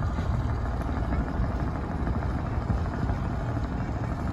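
Steady low rumble on the deck of a moving riverboat: the boat's engine running, mixed with wind buffeting the microphone.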